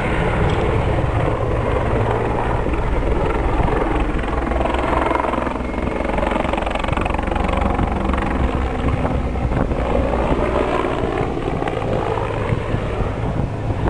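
Mil Mi-24 attack helicopter flying a low display pass: loud, steady rotor and engine noise.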